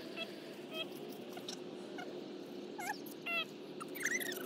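Six-month-old yellow Labrador puppy whining in short high squeaks, several times, over a steady low hum.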